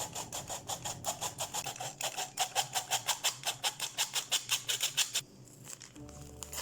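Rapid, even scraping strokes, about seven a second, which stop about five seconds in; soft acoustic guitar music starts near the end.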